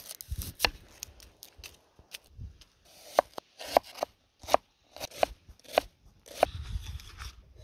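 Kitchen knife chopping a red onion on a wooden board: quick light cuts, then about half a dozen louder, evenly spaced chops roughly half a second apart, each a sharp knock of the blade on the board.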